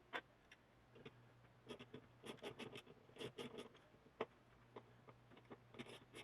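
Faint clicking and scratching of small parts being handled and pulled during work on an air compressor's electric motor, in short clusters of quick ticks with single clicks between.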